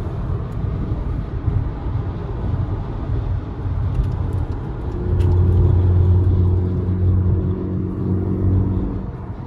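Engine and road noise inside a Volkswagen GTI's cabin at highway speed. About five seconds in, a low engine drone grows louder and holds at an even pitch.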